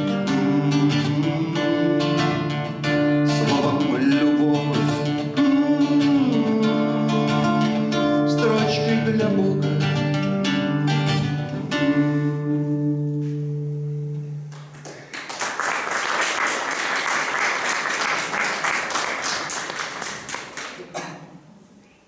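Nylon-string acoustic guitar playing the closing bars of a song over a steady low bass note, ending about fourteen seconds in. Audience applause follows for about six seconds and dies away near the end.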